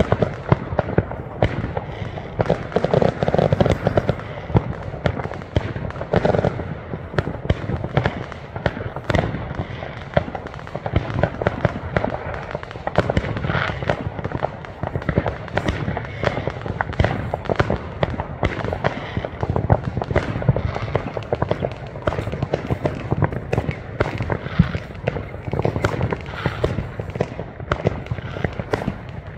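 Fireworks going off without a break: a dense run of overlapping bangs and crackles from many shells bursting at once.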